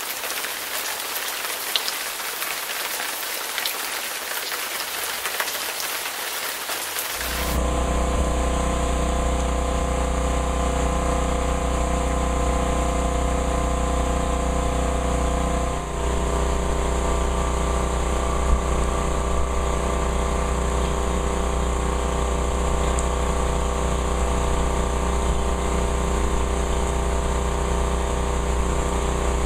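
Steady heavy rain hiss for about the first seven seconds. Then a motor starts running steadily, a low hum with several held tones, while rain keeps falling; the hum shifts slightly about halfway through.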